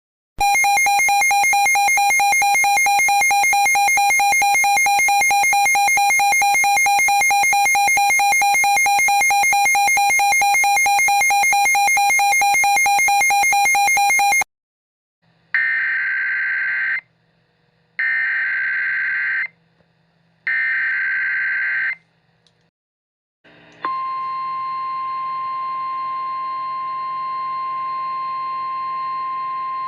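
Emergency alert tones. A harsh electronic buzzing tone lasts about fourteen seconds and cuts off. After a short pause come three screechy EAS/SAME digital header bursts about a second apart, and a few seconds later a steady, high alert tone that holds to the end.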